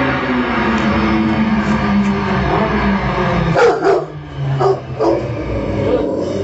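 Rottweiler howling: one long howl that slides slowly down in pitch, breaking into four or five short yelping barks about halfway through, over the low hum of a motorcycle engine running.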